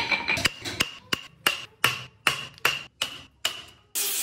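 Hammer blows driving a chisel into a solid wooden block, struck at an even pace of nearly three a second, each blow with a short metallic ring. Near the end they give way to the steady whir of an electric random orbital sander running on the wood.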